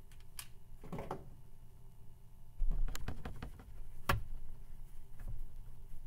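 Board eraser rubbing back and forth across a blackboard in a run of strokes, starting a few seconds in, with a sharp knock among them.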